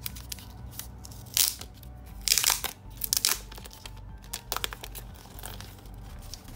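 Thin protective plastic wrap being peeled off a new smartphone and crumpled. It crinkles and crackles in several short bursts, loudest about two and a half seconds in.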